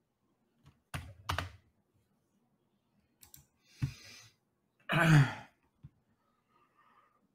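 A few clicks of a computer keyboard, then a breath and a short low vocal sound from a man, falling in pitch, about five seconds in, the loudest thing heard.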